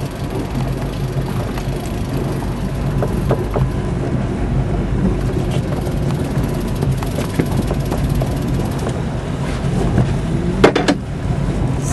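Boat motor running steadily with a low, even hum. A brief rising sound comes near the end.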